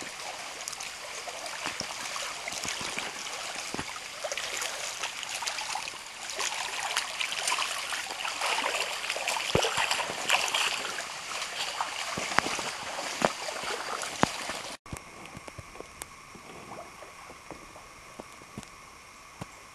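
Feet wading and splashing through a shallow, running creek, with many small splashes over the flowing water. About fifteen seconds in it cuts off suddenly to a quieter, steady water background with a few faint drips from a kayak.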